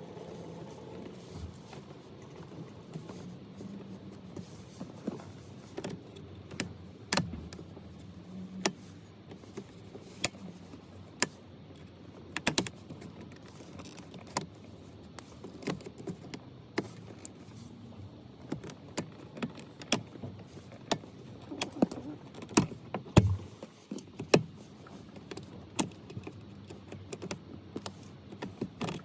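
Irregular sharp clicks and knocks of hands and tools working to pull the original headlight switch out of a VW Golf Mk6 dashboard, plastic clicking and tapping against plastic, with a few louder knocks about two thirds of the way through.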